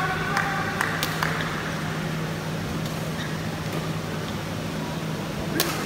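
Badminton rally: shoes squeaking on the court mat and racket strikes on the shuttlecock in the first second or so, then one sharp racket hit near the end, over a steady low hum in the hall.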